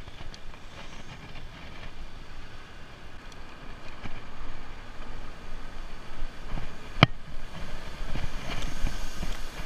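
Wind on the microphone and the rattle and rumble of a bicycle rolling along a city street, rougher in the second half as the tyres run onto paving stones. One sharp clack about seven seconds in.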